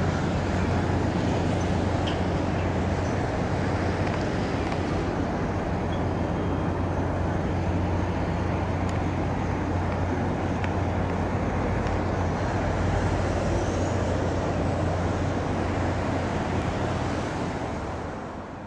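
A steady low engine drone under a constant rushing noise, unchanging until it fades out near the end.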